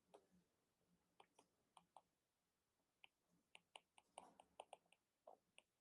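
Near silence broken by faint, irregular light clicks, clustering more densely in the second half.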